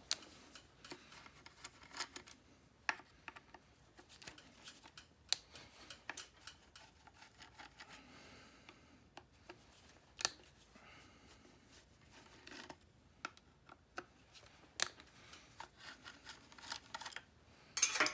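Scattered small metallic clicks and taps with light scraping as a Phillips screwdriver and hands work the screws and magneto plate of an old two-stroke outboard powerhead; the sharpest clicks come at irregular intervals of a few seconds.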